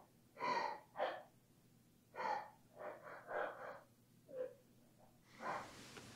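A young woman's quiet, ragged, gasping breaths, about eight short irregular gasps in a row, the breathing of someone in distress.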